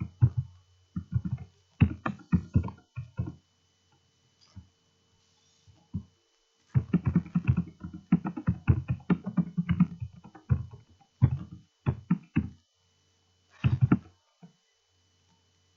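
Computer keyboard typing in quick bursts of clicks, with short pauses between words: a line of text being typed in.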